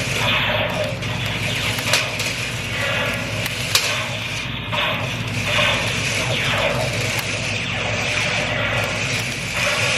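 Small electric motors of remote-control laser-tag toy tanks whirring as the tanks drive and turn on concrete, with repeated falling-pitch electronic laser-fire sounds and a couple of sharp clicks.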